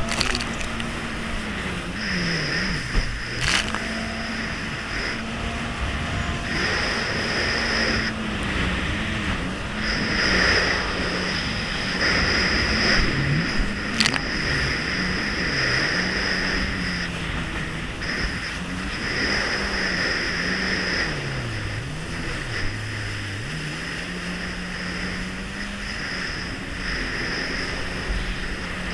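Kawasaki Jet Ski's engine running under way, its pitch repeatedly dropping and climbing again as the throttle is eased off and opened, over a constant rush of water and spray. A high whine comes and goes with it, and there are two sharp knocks, a few seconds in and about halfway.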